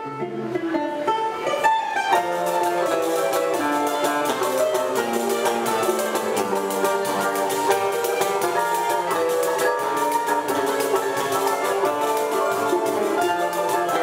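Choro played on a ten-string bandolim with acoustic guitar accompaniment: a quick plucked melody over strummed chords. The music fades in over the first second or two.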